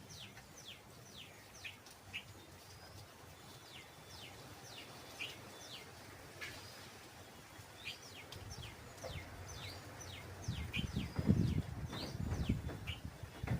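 Small birds chirping: a steady run of short, high, downward-sliding chirps from several birds. From about ten seconds in, a low rumbling and thudding sits beneath the chirps.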